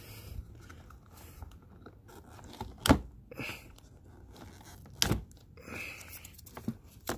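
Hands working at the wiring and rubber connector boots around a small ATV's starter solenoid: scraping and rustling, with two sharp knocks about three and five seconds in, the first the loudest.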